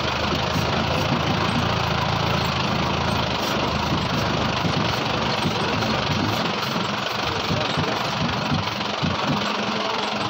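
Jeep CJ's engine running at low revs as the jeep crawls over a rocky dirt track, with a broad noise of tyres on loose stones. The engine note is steady for about the first half and then turns uneven and bumpy.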